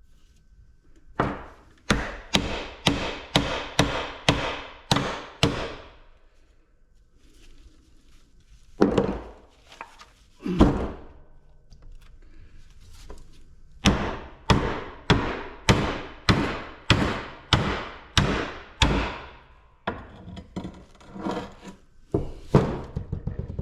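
Heavy blows struck on the thick steel shell of a scrap compressor, metal ringing on metal. They come in runs of about two strikes a second, with two heavier single blows in between, as he tries to cut the shell open.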